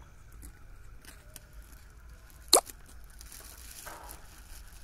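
A single sharp water plop about two and a half seconds in, followed by faint splashing and trickling as a polythene bag of grass carp fingerlings is opened and emptied into the pond.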